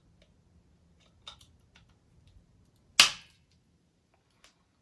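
A single sharp plastic click about three seconds in as a part snaps into place on the Apple USB-C power adapter, with a few faint handling clicks before it.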